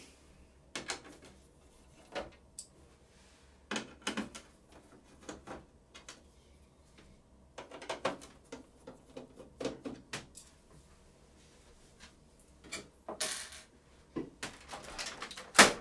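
Screwdriver work on the plastic scanner housing of an Epson WF-R5690 printer as its fixing screws are taken out: irregular small clicks, taps and brief scrapes, with a sharper click near the end.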